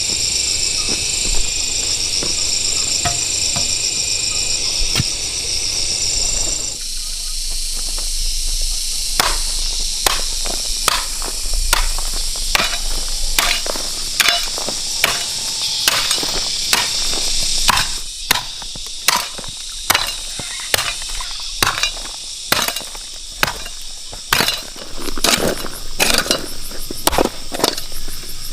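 Insects chirring steadily in a high chorus, with repeated sharp strikes of a hand tool from about nine seconds in, roughly one to two a second.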